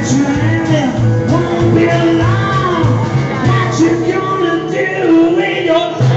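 Live rockabilly band playing, an upright double bass driving a steady walking bass line under drums and gliding melodic lines.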